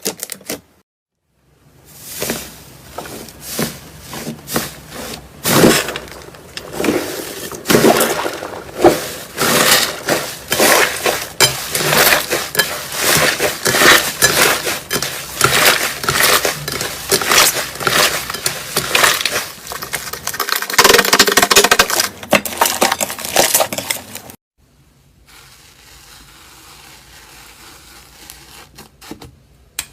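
Slime being squeezed and pressed by hand, giving a dense run of crackling and popping. It starts after a moment's silence and drops to a quiet stretch about four fifths of the way through.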